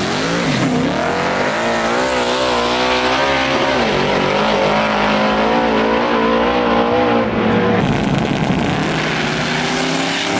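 Drag-racing cars launching at full throttle, the engine note climbing, then running hard away down the street and fading about eight seconds in. Near the end another car's engine revs up with a rising pitch.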